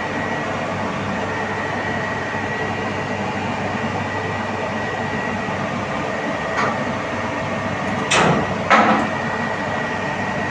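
Steady machinery drone with a thin high whine running through it. About two-thirds in comes a light metal clink, then two louder metal clanks close together as connecting-rod caps and tools are handled under the engine block.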